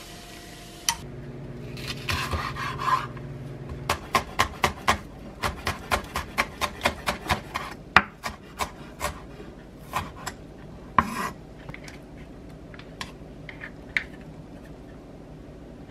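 Chef's knife chopping green onion on a wooden cutting board: quick regular knocks, about four a second, that slow and stop about ten seconds in. Then a short rustle and a few light taps.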